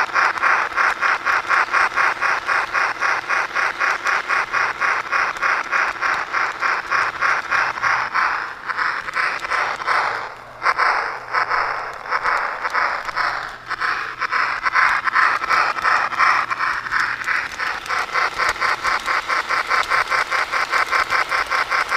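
SMR Pennsylvania D6 4-4-0 model steam locomotive running steadily along its track, heard from its tender as a fast, even rhythm of beats over a faint low hum. The rhythm briefly drops about ten and a half seconds in, then picks up again.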